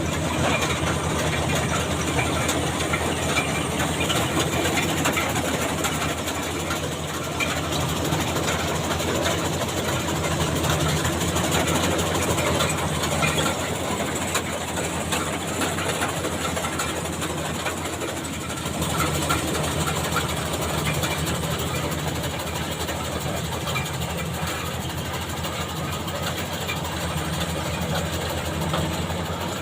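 Maxxi Bimo 102 rice combine harvester's engine running steadily, a continuous even hum.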